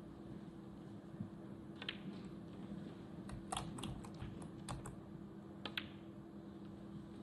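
Snooker balls clicking together and the cue tip striking the cue ball: a dozen or so sharp, separate clicks at irregular intervals, some in quick pairs, over a low steady hum.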